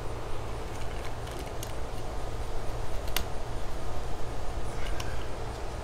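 Screen mesh and spline being worked into a Screen Tight screen track by hand and tool, giving a few sharp clicks and ticks, the loudest about three seconds in, over a steady low rumble.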